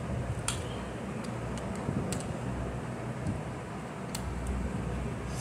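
A screwdriver working the brass screw terminals of a plastic timer terminal block, making a few short, sharp clicks spread over several seconds against a steady low background hum.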